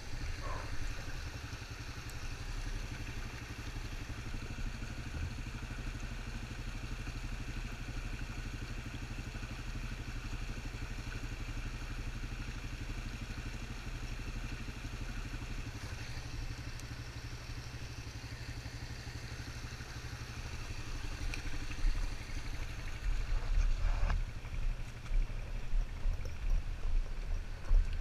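Honda Recon 250 ATV's single-cylinder four-stroke engine running steadily at low speed on a dirt trail, getting louder and more uneven over the last several seconds.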